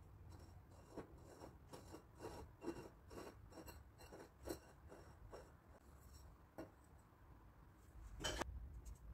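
Faint, irregular short scrapes and taps, about two or three a second, then a pause and one louder scrape near the end.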